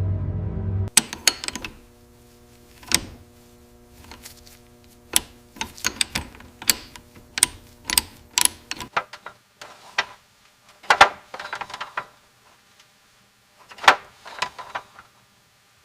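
A low steady hum cuts off about a second in, then irregular sharp clicks and taps, like small metal parts or tools being handled on a bench, coming in short clusters with gaps between.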